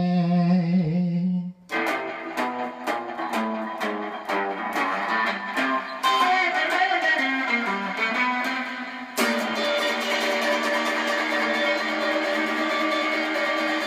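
Gretsch hollow-body electric guitar playing a rockabilly line of quick single picked notes, after a held note cuts off about two seconds in. From about nine seconds a strummed chord is left ringing.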